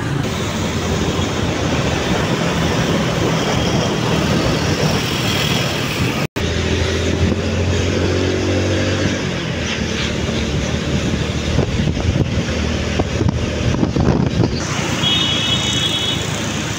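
Auto-rickshaw engine running under way, with road and wind noise, heard from the passenger seat. The sound cuts out for an instant about six seconds in.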